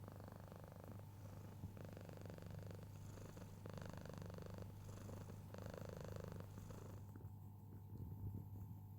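Domestic cat purring close up, swelling with each breath about every two seconds, then quieter about seven seconds in.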